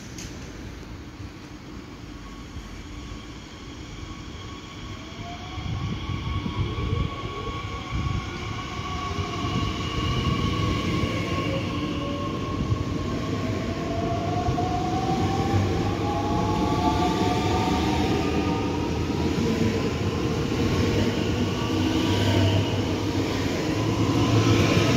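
Red DB Regio electric multiple unit (Bombardier Talent 2) rolling along the platform and passing close by. Whining tones glide in pitch over the rumble of the wheels, and the sound grows louder as the train draws level.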